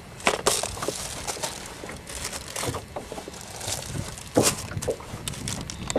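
Hands rummaging through a plastic tackle box: lures and hooks clicking and rattling against the plastic trays and lid, with a sharper knock about four and a half seconds in.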